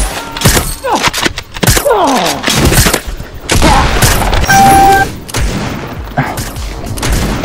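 Rapid blaster shots and impacts in quick succession, with falling swooping sounds in the first few seconds and a short steady beep about halfway through.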